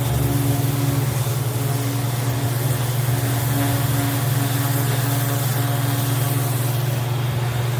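Electric random-orbital (DA) sander running steadily, a constant motor hum with a sanding hiss over it, smoothing body filler on a fiberglass top.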